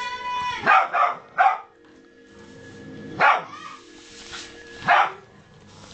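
Rottweiler barking: three sharp barks in quick succession about a second in, then single barks about three seconds in and again near the end.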